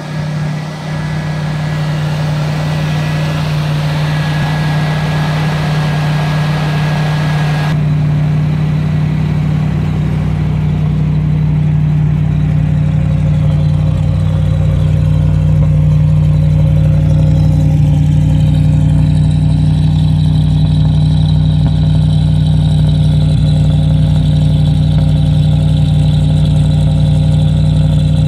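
1972 Cabana motorhome's engine idling steadily, with a strong low hum. A rushing hiss over it stops suddenly about eight seconds in, and the engine grows a little louder after about twelve seconds.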